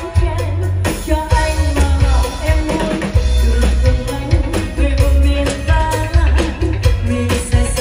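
A woman singing into a microphone over a live band with a drum kit and electric guitar, heard through PA speakers and picked up by a phone, with strong bass.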